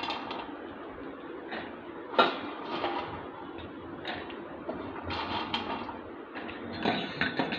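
A steel spoon clinking and scraping against a steel pot as popped corn is tipped into melted caramel to be stirred in, with scattered knocks, a sharp one about two seconds in and a busier run of clinks near the end.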